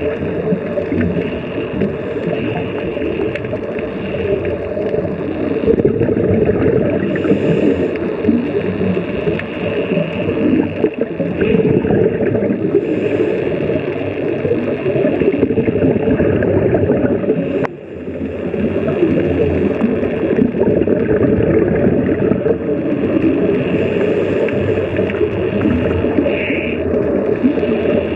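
Underwater sound picked up through a camera's housing: a steady, muffled low rumble with the gurgle and hiss of a scuba diver's exhaled bubbles now and then.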